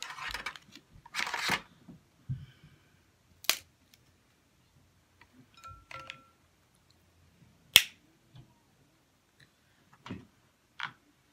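Cooked snow crab shell being cracked and snapped apart by hand: a crunchy cracking in the first second and a half, then a few separate sharp snaps, the loudest about eight seconds in.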